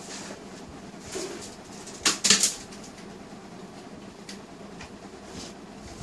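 A few light clicks, then a short, louder clatter of sharp clicks a little after two seconds in, with faint ticks later: hard objects being handled, most likely toys being picked up off-camera.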